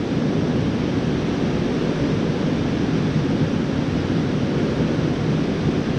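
Steady rush of river water from rapids running into a pool, an even noise without let-up.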